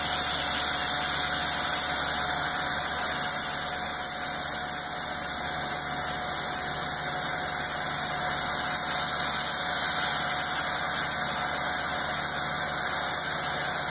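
CNC vertical milling machine running a cutting program, its spindle and cutter machining a polycarbonate rod turned on a rotary fourth axis: a loud, steady high whine and hiss that holds even throughout.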